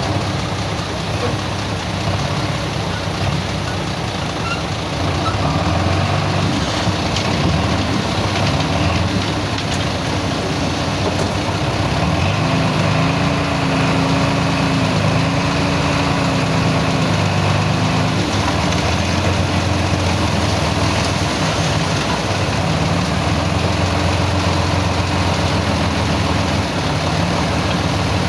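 Heavy diesel earthmoving machinery working, its engine running steadily under load with the pitch rising and falling in the middle as it is revved.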